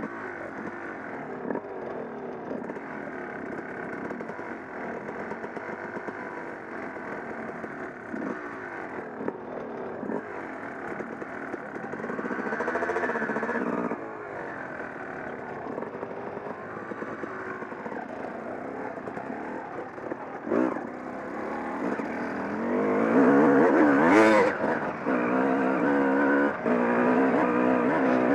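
Dirt bike engine running close to the microphone at low revs while riding slowly over rough ground, with a brief rev about halfway through. It gets louder and revs higher from about three quarters of the way in as the bike accelerates.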